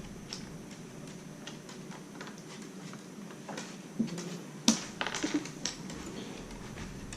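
Plastic Lego bricks clicking and rattling as they are handled in building, with scattered small clicks and a louder cluster of clacks past the middle.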